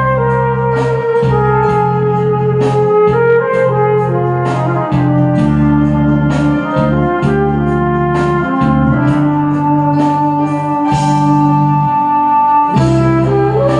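Flugelhorn playing a slow ballad melody with long held notes, over a backing track with a bass line and drum beats.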